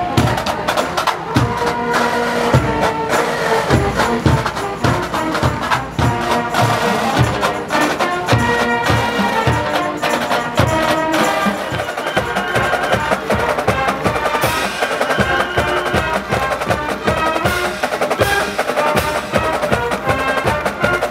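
A marching band playing: held notes over a steady drum beat.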